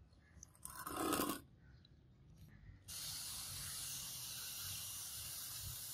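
A handheld spray nozzle hissing steadily at a small stencilled brass sword collar, starting about three seconds in. A short, louder noise comes about a second in.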